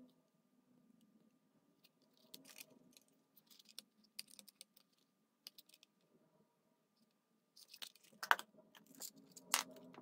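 Light clicks, taps and rattles of hard plastic clock-radio case parts being handled and prised at, sparse at first, with two sharper knocks near the end.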